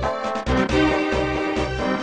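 Background music with a steady beat: a bass note pulsing about two to three times a second under a melody.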